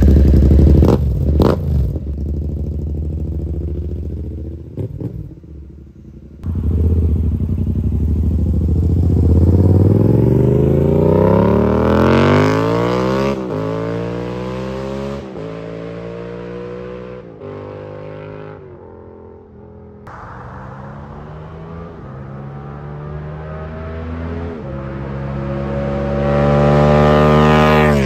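Yamaha R7's 689 cc parallel-twin engine through a Yoshimura AT2 full titanium exhaust, ridden past in several flybys. Sharp throttle blips come at the start. The bike then accelerates hard with the pitch climbing, dropping in steps at each upshift, and another pass builds to its loudest near the end.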